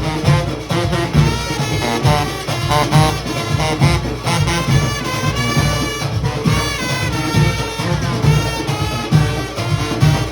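Junkanoo band playing: brass horns carrying the melody over a steady pounding drum beat.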